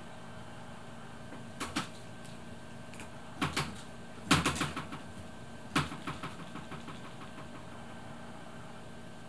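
Clusters of light clicking and tapping as a cat's paw knocks a wand toy on a stick, the loudest flurry a little past four seconds in, over a steady background hum.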